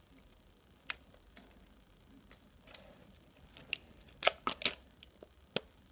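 Sharp clicks and crackles of a plastic toy ball's wrapping being pulled and peeled open, with a quick run of loud snaps about four seconds in.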